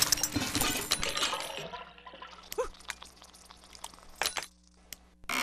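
Aftermath of a crash as a sound effect: a flurry of small clattering impacts, like debris and broken bits landing, that thins out over about two seconds into scattered single clicks and taps. A short cluster of taps comes about four seconds in, then it goes almost silent.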